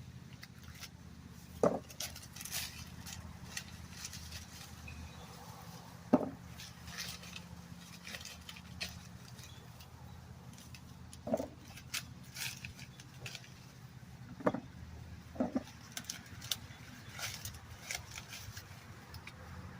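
Dry field corn being hand-picked: brittle husks and leaves rustling and crackling, and ears landing with a sharp thud five times, every few seconds. A steady low hum runs underneath.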